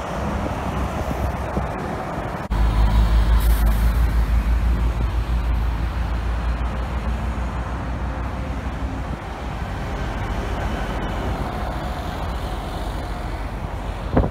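A city bus's diesel engine running as the bus drives past, with a low pulsing rumble that comes in loud about two and a half seconds in and then eases off. There is a short hiss about three seconds in, over steady traffic noise.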